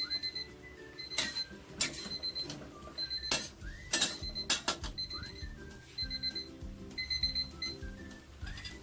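Light background music with high, bell-like chiming notes over a stepping melody, with several sharp clicks scattered through it.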